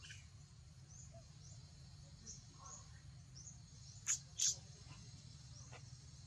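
Faint outdoor ambience: small high chirps repeating about twice a second over a low steady rumble, with two short, loud, high squeaks about four seconds in.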